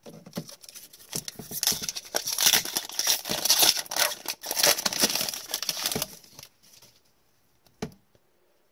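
A hockey card pack's foil wrapper is crinkled and torn open by hand, a dense crackling that stops about six seconds in. A single light click follows near the end.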